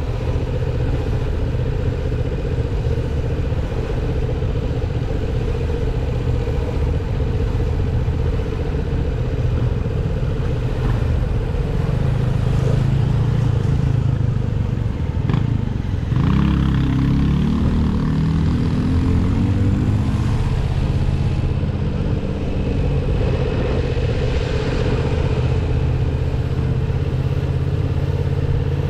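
Yamaha MT-07's 689 cc parallel-twin engine running steadily under way. About sixteen seconds in, the note drops briefly and then climbs in pitch for about four seconds as the engine revs up.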